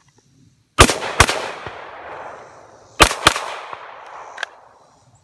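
Two quick rifle shots about a second in, then two quick pistol shots about two seconds later, each pair followed by a long fading echo across the range: a rifle-to-pistol transition drill. A short click follows near the end.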